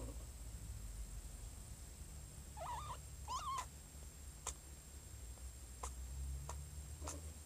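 Cat in labour purring steadily, with two short meows about three seconds in and four faint sharp clicks after them.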